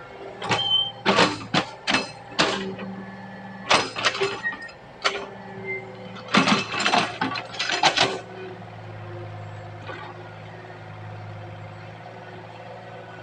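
Excavator engine running steadily, with a string of loud, sharp knocks and clanks over the first eight seconds or so, after which only the engine hum remains.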